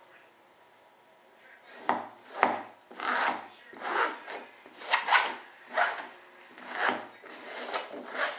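Resin-wet fiberglass cloth being rubbed and worked into a wing mold with a handheld applicator: about a dozen quick rubbing strokes, starting about two seconds in. The resin is sticky at this stage and is being pressed into the mold's corners to keep air bubbles out of the part.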